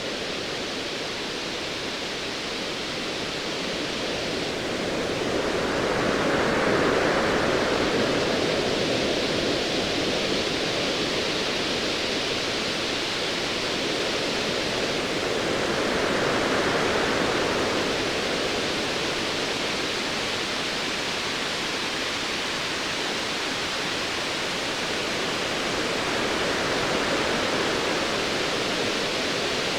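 Ocean waves rolling in a continuous wash of surf, swelling up and easing back about every ten seconds.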